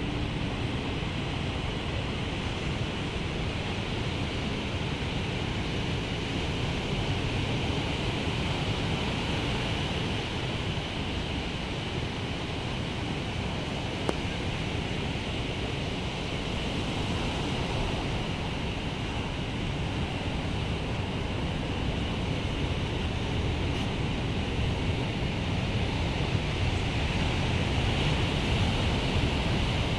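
Ocean surf: waves breaking and washing in close to shore, a steady rushing noise that grows a little louder near the end.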